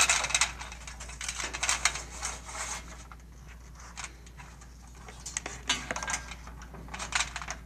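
Electrical wire being pulled through a barrier tower's frame by hand: irregular scraping and rustling with light clicks, busiest in the first few seconds and again briefly later, over a steady low hum.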